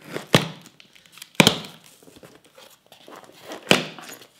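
A knife slitting packing tape on a cardboard shipping box, then the cardboard flaps being pulled open, with three sharp rips of tape and cardboard.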